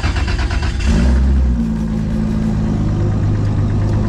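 Big-turbo 2JZ inline-six of an 1800 hp MK4 Toyota Supra running loud and uneven, heard from inside the cabin. It gets louder from about a second in.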